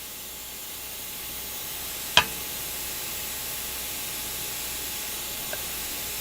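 Steady hiss of background noise, with one sharp metallic click about two seconds in as small carburetor linkage parts are worked with needle-nose pliers.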